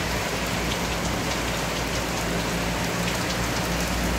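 Heavy rain pouring steadily onto the street and surfaces, with a low steady hum underneath.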